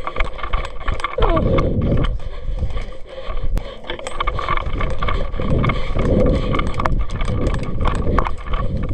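Rumbling movement and handling noise close to the microphone, with scattered sharp clicks, a few of them louder.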